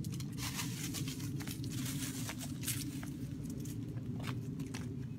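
Irregular crunching and crackling of steps over dry leaves and mulch, over a steady low rumble.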